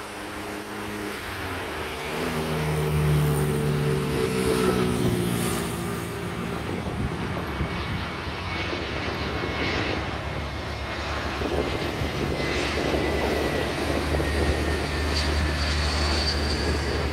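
Airbus A321 airliner's jet engines on final approach, getting louder over the first few seconds. A droning hum falls slowly in pitch, and later a faint high whine joins it. A deep rumble strengthens near the end as the jet comes low and close.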